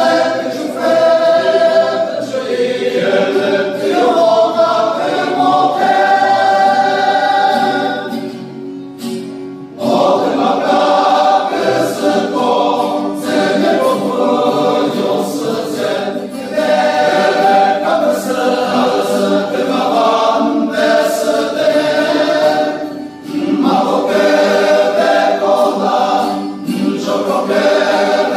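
Male church choir singing, with a short break between phrases about nine seconds in and another brief one about twenty-three seconds in.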